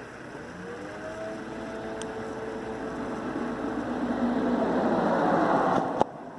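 Portable 12-volt tire inflator running, its motor tone wavering and the sound growing louder, then switched off with a click about six seconds in.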